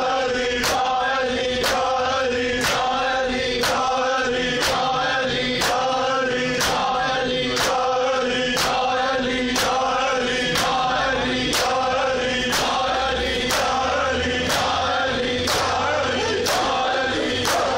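Men doing matam: bare-chested mourners strike their chests with their palms in unison, about once a second, while their voices chant a noha in time with the strikes.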